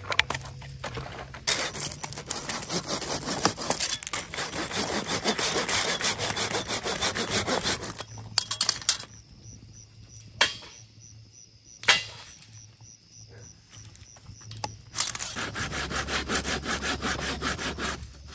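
Hand saw cutting through a wooden branch in quick back-and-forth strokes. The sawing stops midway, two sharp knocks sound, and then the sawing starts again.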